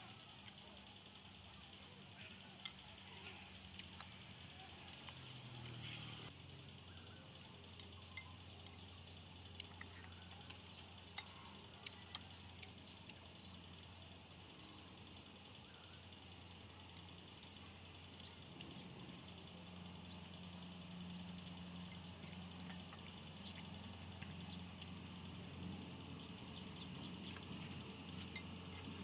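Quiet eating sounds: wooden chopsticks clicking against a ceramic bowl of noodle soup, with noodles slurped now and then. The clicks come most often in the first half, over a faint steady background hum.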